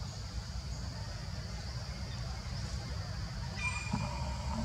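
Outdoor ambience: a steady low rumble with a steady high hiss over it, and a short high chirp about three and a half seconds in.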